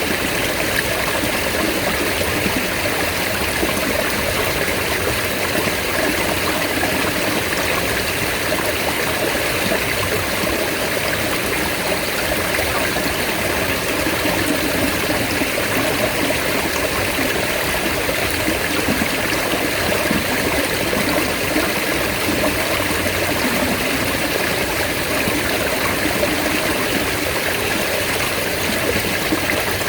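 Mountain stream water flowing steadily, an even rushing with no breaks.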